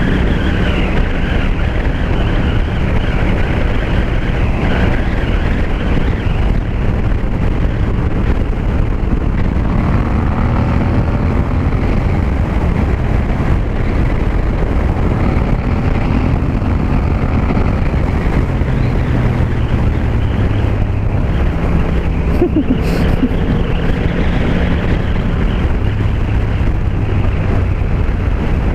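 Yamaha MT-07's parallel-twin engine through an Akrapovic 2-into-1 carbon exhaust, running at road speed under a steady rush of wind on the helmet mic. The engine note shifts with the throttle and climbs in a few places, about ten seconds in, a little past twenty seconds, and at the end.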